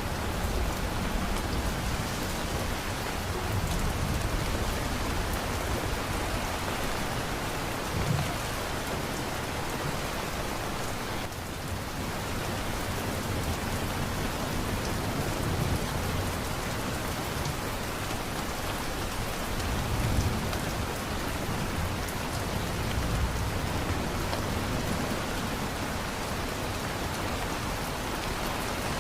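Steady heavy rain falling, with low rolls of distant thunder swelling now and then, the strongest about two-thirds of the way through.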